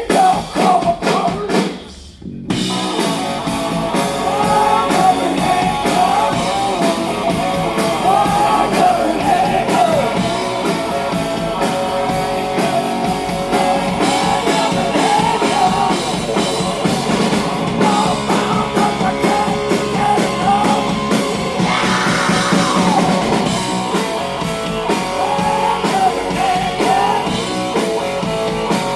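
Live blues-rock band playing, with an electric guitar lead of wavering, bent notes over bass and drums. The band drops out briefly about two seconds in, then comes back in full.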